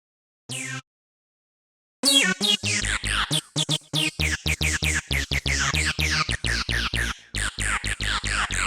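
Synthesizer stab sounds from the UVI Synth Anthology 5 sample library: one short stab, a pause, then about two seconds in a fast rhythmic run of short chord stabs over a deep bass.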